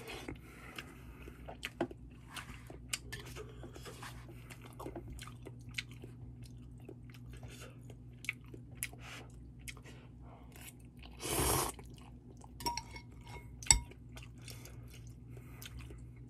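Close-miked chewing and wet mouth clicks from a person eating ramen noodles, over a steady low hum. A brief louder noise comes about eleven seconds in, and a single sharp click near the end.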